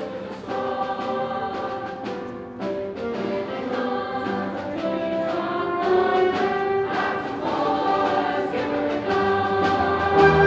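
High school mixed choir singing with instrumental accompaniment, slowly growing louder.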